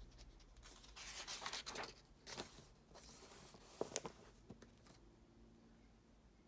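Paper pages of a printed workbook rustling as a page is turned by hand and smoothed flat, with two sharp little clicks about four seconds in.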